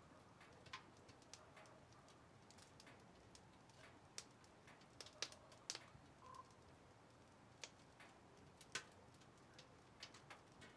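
Near silence: quiet room tone with faint, irregular small clicks.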